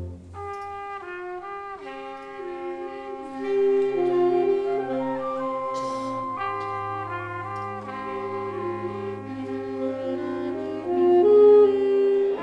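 High school concert band playing, brass carrying held notes in shifting chords; the music starts softly and grows louder a few seconds in, swelling again near the end.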